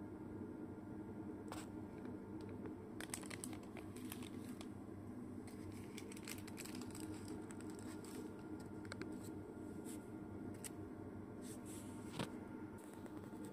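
Faint crinkling and scattered clicks of paper hamburger wrappers being handled, over a steady low hum, with one sharper click near the end.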